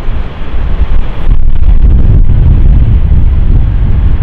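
Strong storm wind buffeting the microphone: a loud, rough low rumble that dips briefly in the first second, then holds steady.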